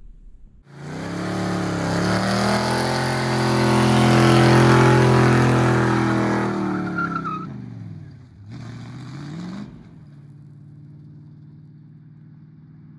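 Old 1960s Chevrolet pickup doing a burnout: the engine revved hard with the rear tyres spinning and squealing, then a second, shorter rising rev as it pulls away, after which the engine sound drops to a steady, much fainter level as the truck drives off.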